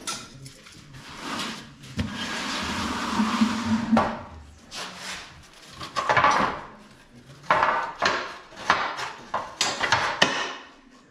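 A Chevrolet Nova's front coil spring and lower control arm being worked loose by hand: a long scraping rustle about two seconds in, then a string of metal clanks and knocks as the parts shift and the spring comes out.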